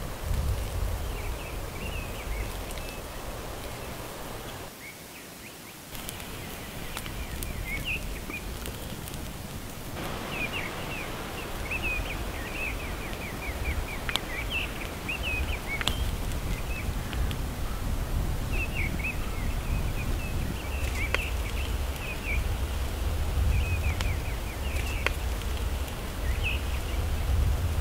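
Small birds chirping and twittering again and again over a steady low rumble and outdoor hiss, with a few sharp clicks.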